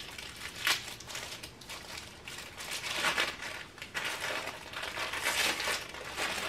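Clear plastic packaging crinkling and crackling as it is unfolded and pulled open. There is a sharp crackle about a second in, and denser crinkling from about halfway through.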